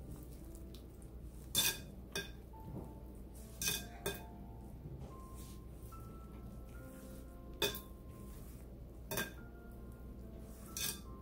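Glass mixing bowl clinking as a hand mixes and kneads dough in it: about seven sharp, ringing clinks at irregular intervals, over faint background music.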